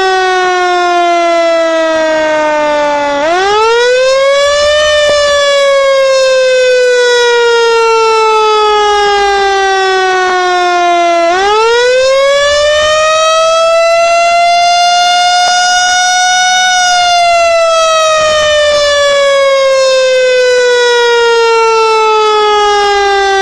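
Siren wailing in long, slow cycles: the pitch climbs sharply about 3 and 11 seconds in, then slides slowly back down over several seconds, and starts climbing again at the very end.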